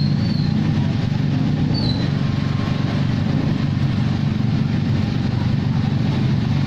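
Steady low mechanical drone at an even level, a machine-like hum with no breaks or changes.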